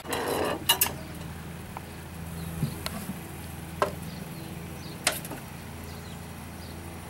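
Split logs being fed into the firebox of a 5/8-scale Wood Brothers 22/70 steam traction engine. There is a short rush of noise at the start, then a few sharp knocks of wood against the firebox over a low steady hum.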